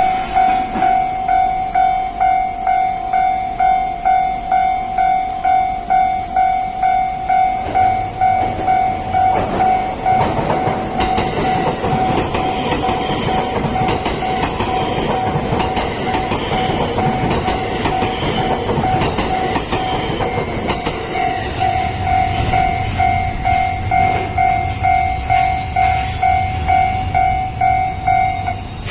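Japanese level-crossing warning bell ringing about twice a second while a 287 series electric limited express train passes. The train's running noise and clattering wheels cover the bell through the middle. The bell carries on after the train has gone and cuts off shortly before the end.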